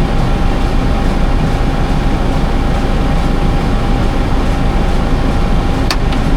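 Case IH Farmall 110C tractor's diesel engine running steadily at a stop, with a steady high hum over it. A single sharp click sounds near the end.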